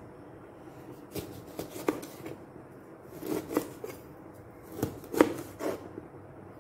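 Knife cutting a lemon on a cutting board: a series of uneven knocks and cuts, loudest about five seconds in.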